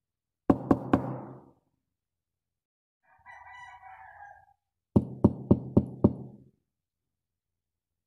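Knocking on a door: three quick knocks, then about four seconds later five knocks in an even rhythm. Between the two sets comes a short, much fainter pitched sound lasting about a second.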